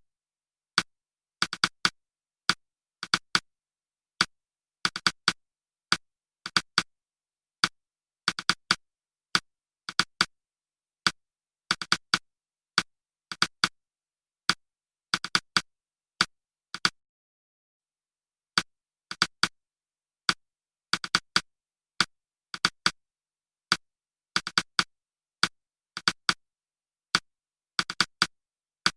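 Sparse electronic drum-machine beat: short, sharp clicky hits, singly or in twos and threes, in groups roughly every 1.7 s, with silence between and a break of about a second and a half just past the middle.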